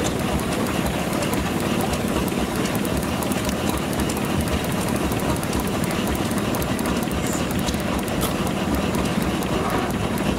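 A machine running steadily, with a faint regular beat through the noise.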